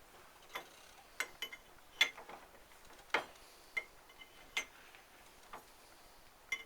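Sharp metallic clicks at uneven intervals, about ten in all, from a wrench tightening the ring nut on a Citroën 2CV driveshaft output hub.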